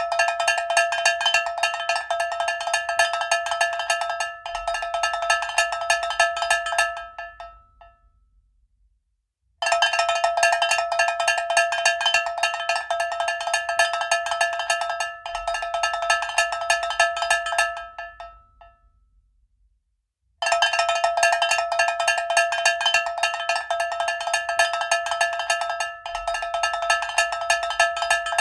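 Cowbell ringing with rapid, continuous clanging strikes. It comes in three bouts of about eight seconds each, and each bout dies away before the next begins.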